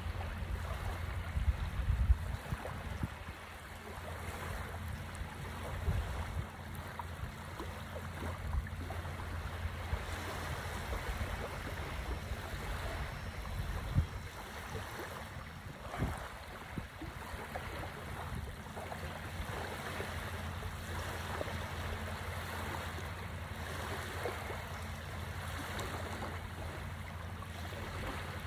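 Small waves lapping and washing onto a sandy shore in a steady hiss, with wind rumbling on the microphone. There are a few short low thumps now and then.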